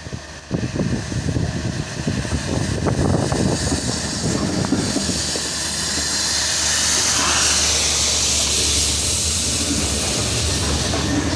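A Class 66 diesel locomotive's two-stroke V12 engine and wheels passing close by, coming in suddenly about half a second in with a heavy rumble and clatter. A rail head treatment train follows, with a strong steady hiss from about halfway, typical of its high-pressure rail-cleaning water jets. A second Class 66 engine comes level near the end.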